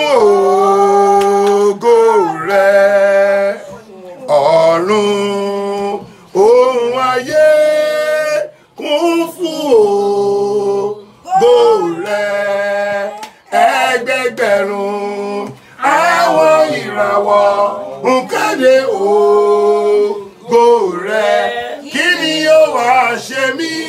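A man singing unaccompanied, in phrases of long held notes with short pauses between them.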